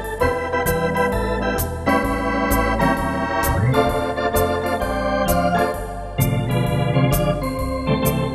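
Wersi Atlantis electronic organ played with a swinging drawbar-organ registration: sustained chords on the manuals over pedal bass notes changing about every half second, with crisp high clicks among the notes.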